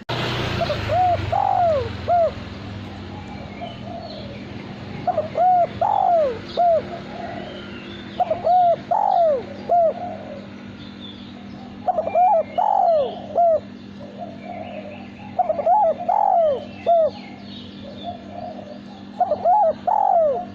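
Male spotted dove (derkuku) cooing: six phrases of several short notes each, one phrase about every three and a half seconds. A steady low hum runs underneath.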